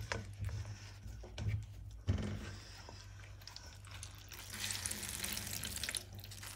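Water trickling out of a muslin cloth of fresh chhena as it is twisted and squeezed by hand over a colander in a sink, pressing the last water out of the curds. Cloth rustles and light handling knocks come first; the trickle is loudest from about four and a half to six seconds in, over a low steady hum.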